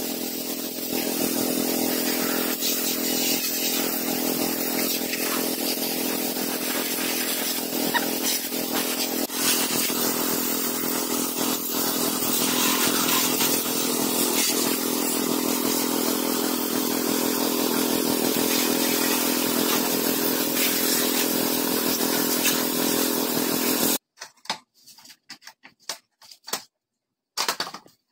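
Small motorcycle engine running at a steady speed, stopping abruptly about 24 seconds in. After it, faint scratching and rubbing sounds.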